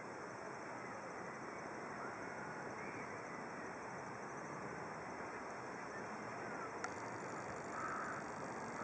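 Steady outdoor background hiss with a few faint bird calls and a single sharp click about seven seconds in.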